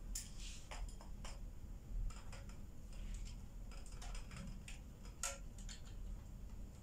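Scattered light plastic clicks and taps of a ring light's phone holder being fitted and turned into place at the centre of the ring.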